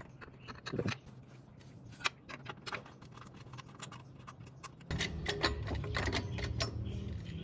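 Light metallic clicks and ticks of a bolt being worked in by hand and tools being handled. About five seconds in, a steady low hum starts and carries on under the clicks.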